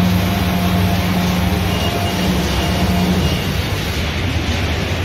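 Steady, loud low hum of workshop machinery running, with faint higher whines over it; the deepest tone in the hum drops away about three seconds in.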